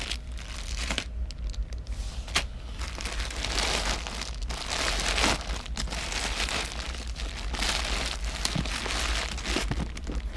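Hands rummaging through a bin of crystal and glass bead necklaces: a continuous, irregular rustling and crinkling with many small clicks of beads against each other, busier in the middle.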